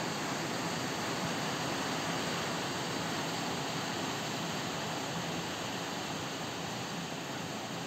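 Heavy rain mixed with hail pouring down, a steady dense hiss that eases a little near the end.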